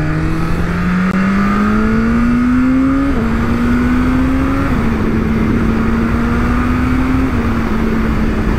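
BMW S1000RR's inline-four engine under acceleration, its pitch rising steadily and dropping sharply at upshifts about three and about five seconds in, then holding nearly steady at cruising revs.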